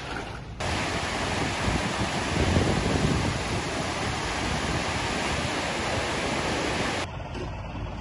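Swollen, muddy floodwater river rushing and churning: a loud, steady rush of water that cuts in abruptly about half a second in and cuts off abruptly near the end.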